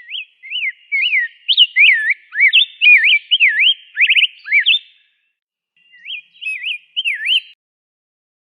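Rose-breasted grosbeak singing: a long warbled phrase of quick whistled notes that slur up and down, then, after a pause of about a second, a second, shorter phrase.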